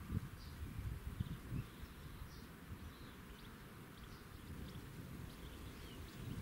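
Birds chirping in short scattered calls over a low, gusty wind rumble on the microphone.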